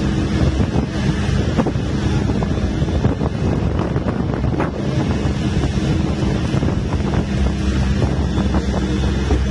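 A bus's diesel engine drones steadily as it pulls uphill, heard from a passenger window, with wind buffeting the microphone and a few scattered clicks and rattles.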